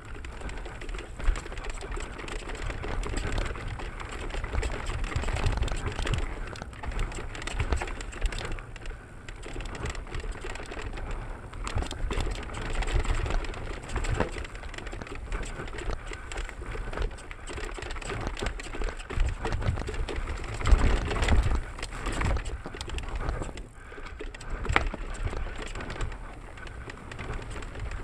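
Mountain bike rolling down a rough forest singletrack: tyres crunching over dirt, roots and stones, with the frame and components clattering in many small clicks. Wind rumbles on the microphone throughout.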